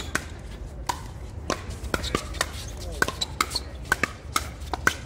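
Pickleball paddles striking a hollow plastic ball in a fast volley exchange at the net: a quick run of sharp pops, some only a fraction of a second apart.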